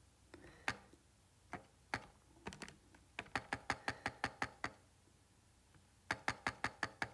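Calculator keys being pressed: a few separate clicks, then a quick run of about ten presses, a pause, and another quick run near the end.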